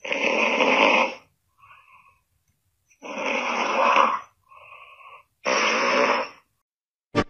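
A cat snoring: three loud snores, each followed by a quieter, shorter breath.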